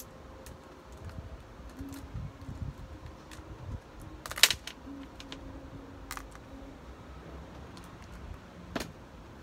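Scattered small clicks and taps of decorative pebbles being placed into a succulent pot by hand, with one louder click about four and a half seconds in.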